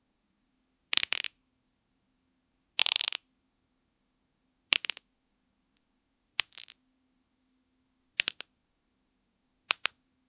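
Knuckle-cracking and bone-breaking sound effect: six sharp cracks, about one every two seconds, each a quick cluster of a few snaps.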